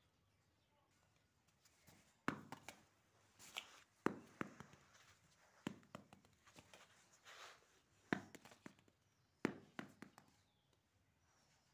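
Large plastic building blocks knocking and clicking together as they are handled and set down, about five sharp knocks at irregular intervals, with soft rustling between them.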